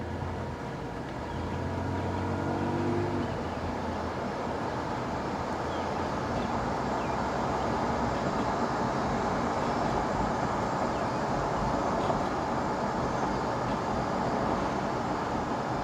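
2020 Toyota Tacoma TRD Off-Road pickup driving, its engine pulling up over the first few seconds and then giving way to steady road noise. Under it runs a whine from the rear end, which the owner suspects is the rear differential.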